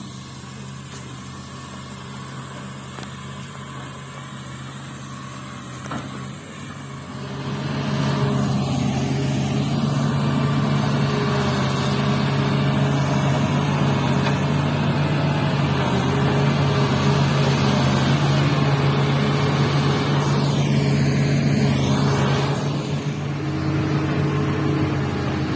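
Excavator's diesel engine running low, then revving up about seven seconds in and running hard, easing back near the end. A high whine dips and rises in pitch around twenty seconds in.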